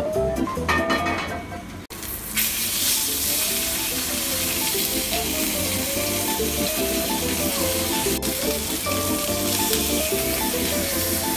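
Background music throughout; about two seconds in, a whole kasago (marbled rockfish) starts sizzling steadily as it sears in hot olive oil in a frying pan over high heat to brown its skin.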